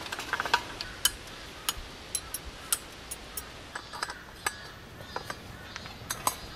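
Irregular light clicks and clinks, about twenty scattered through a few seconds, over a faint steady hiss.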